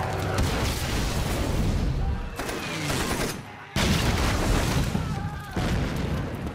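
Film soundtrack of an aerial bombardment: continuous heavy explosions and gunfire. A brief lull a little past three seconds is broken by a sudden loud blast, with another jolt a couple of seconds later.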